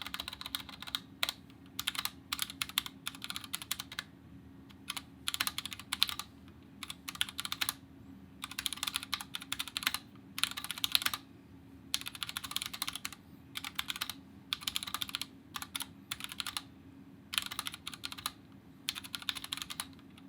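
Typing on a Kemove DK61 Snowfox 60% mechanical keyboard with stock Gateron Red linear switches: runs of quick keystroke clacks broken by short pauses.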